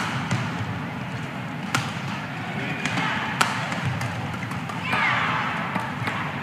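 Badminton rally: sharp clicks of rackets striking the shuttlecock every second or two, over the steady murmur of an indoor crowd.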